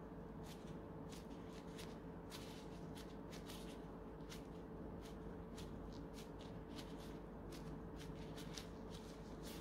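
Disposable plastic gloves crinkling as the hands fold and pinch a filled qatayef pancake shut: an irregular string of small crackles and rustles over a steady low hum.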